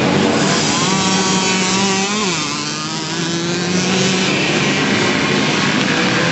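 Several racing moped engines buzzing at high revs together. The pitch of the loudest one drops sharply about two seconds in.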